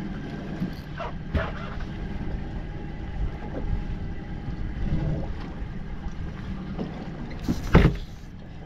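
Steady low rumble and wash of a small boat at sea, with a few faint knocks and one loud, short thump near the end.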